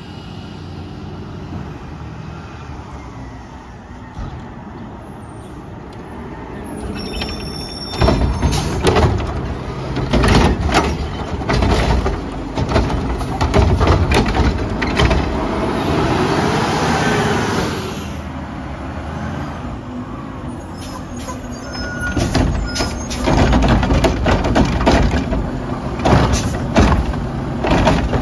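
Diesel Mack LR garbage truck at a curbside stop. Its air brakes hiss briefly about seven seconds in. Then the engine revs up to drive the Curotto-Can arm's hydraulics, with repeated clanks of carts being lifted and dumped, in two loud bouts separated by a quieter pause.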